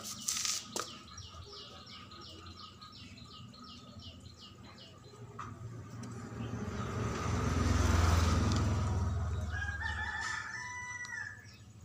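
A motor vehicle passing, its low rumble swelling to a peak about two-thirds of the way through and then fading, with a rooster crowing near the end. Early on, a quick run of high repeated chirps.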